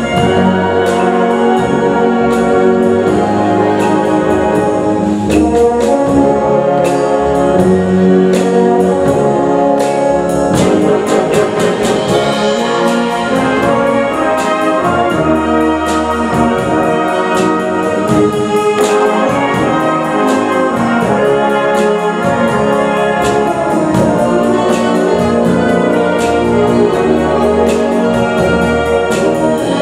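Concert wind band playing a brass-led medley of 1960s pop songs, with trombones and trumpets prominent over a steady beat.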